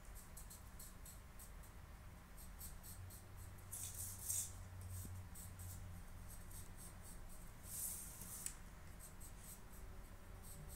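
Graphite pencil scratching across paper in short repeated strokes, with louder stretches of scribbling about four and eight seconds in.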